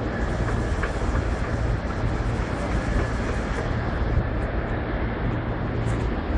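Steady low rumble and hiss of wind on the microphone at a high outdoor vantage point, with no clear single event.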